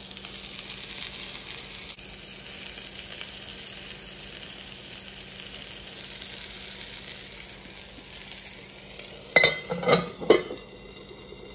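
Flipped hamburger patty sizzling in a cast-iron skillet with cheese slices laid on top to melt; the frying hiss eases off after about eight seconds. Near the end come three sharp, ringing metal clanks as a lid is set on the skillet.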